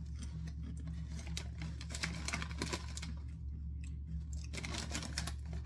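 Crunching of a crisp being chewed: irregular clusters of crackly clicks, over a low steady hum.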